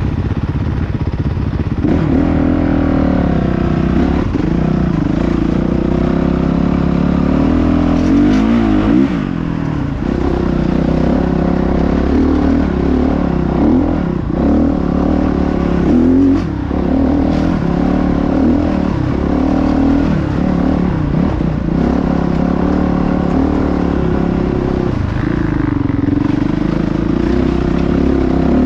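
Dirt bike engine being ridden hard off-road, its revs rising and falling again and again with the throttle.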